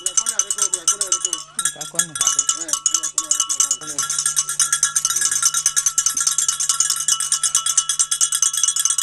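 A metal bell struck or shaken rapidly and without a break, ringing with several steady bright tones. Low voices talk under it for the first few seconds.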